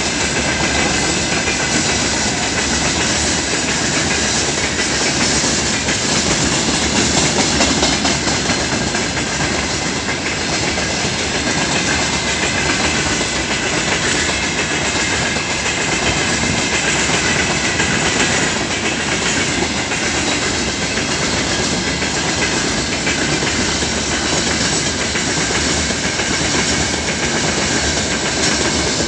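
Train of empty freight gondola cars rolling past at speed, its wheels running steadily and loudly on the rails.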